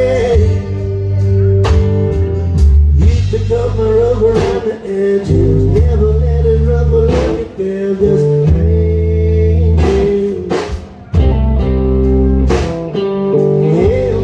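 Live rock band playing: electric and acoustic guitars with a bending lead line over bass guitar and a drum kit keeping a steady beat.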